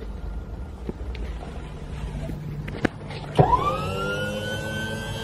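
Goupil G3's electric tipper pump motor starting about three and a half seconds in: a whine that sweeps quickly up in pitch, then holds high and steady as it runs to lift the tipper body. A click comes just before it, over low rumbling wind noise.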